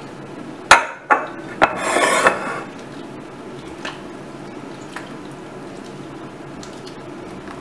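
A spatula stirring diced cucumbers and onions in salt brine in a mixing bowl. About a second in there are three sharp knocks of dishes, then a short scraping rustle. After that only faint stirring is left.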